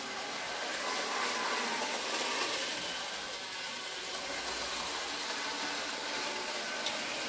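Z-scale model trains running on the layout's track: a steady whirring hiss from their tiny electric motors and wheels.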